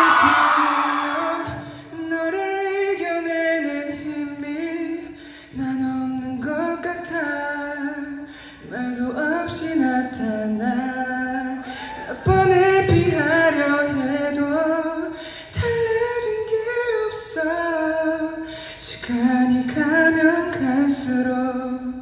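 A man singing a slow melody live into a handheld microphone, holding notes and moving between pitches every second or so.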